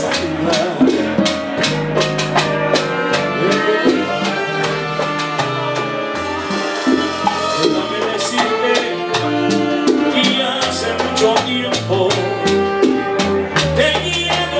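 A live salsa band playing: trombones, bass and hand percussion on congas and timbales keeping a steady run of sharp hits, with the lead singer at the microphone.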